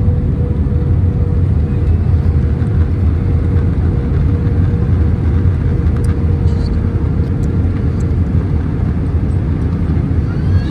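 Steady low rumble of an Airbus A320's engines and rushing air, heard inside the cabin as the airliner descends toward landing. A faint steady hum rides on it and fades out about eight seconds in.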